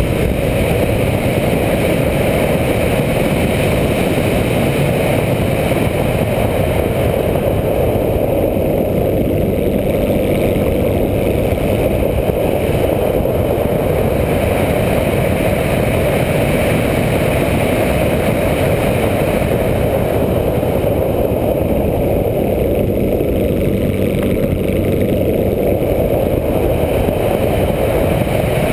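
Steady drone of a light aircraft's engine mixed with heavy wind rush, picked up by a camera mounted on the plane's tail.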